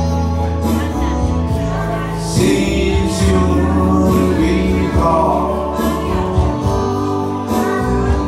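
A man singing into a microphone over a recorded backing track with a steady bass line.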